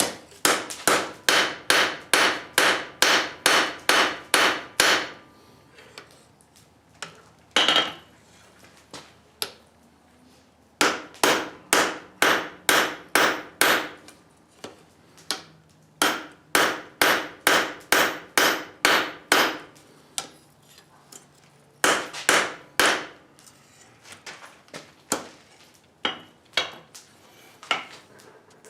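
Blacksmith's hammer striking a hot steel flat bar on an anvil, in runs of quick, evenly spaced blows, about three a second, with pauses between the runs.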